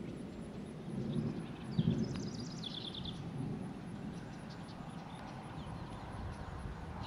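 Low rumble of distant thunder, swelling briefly about one and two seconds in. A bird sings a quick falling trill of rapid notes around two to three seconds in.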